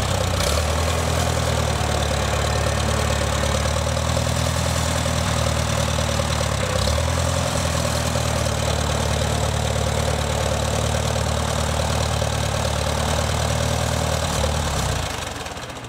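Farmall A tractor's four-cylinder gasoline engine running steadily at low speed as the tractor drives slowly. It fades away near the end.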